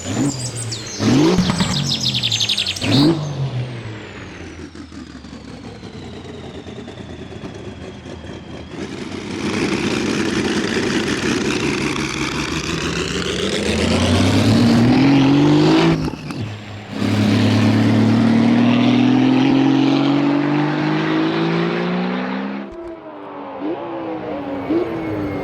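Racing car engine revved in short sharp blips, then accelerating hard through the gears. Its pitch climbs steadily, with a brief break at each of two gear changes.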